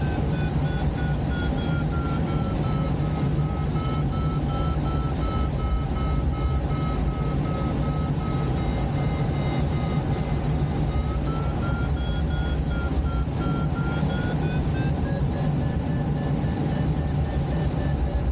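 Glider's audio variometer sounding a thin electronic tone whose pitch slides down over the first few seconds, then rises in two steps later on, following the glider's climb or sink rate. Underneath is a steady rush of air past the cockpit in flight.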